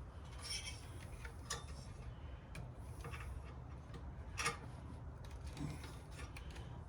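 Faint clicks and snips of hand wire cutters working at a wire on a radial arm saw, the loudest snip about four and a half seconds in.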